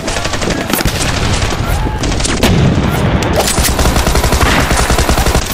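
Automatic gunfire sound effect: continuous rapid machine-gun fire, shot following shot.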